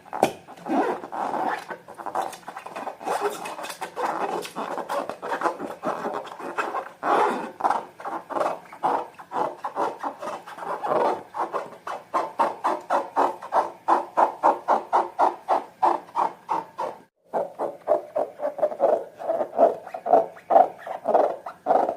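Slime being kneaded and squeezed by hand, a rapid run of sticky squelching pops and clicks, several a second, with a brief pause about 17 seconds in.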